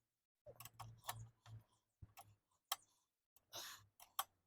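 Ratchet wrench clicking in short, irregular strokes, with a brief scrape about three and a half seconds in, as the bolts of a motorcycle radiator guard are tightened.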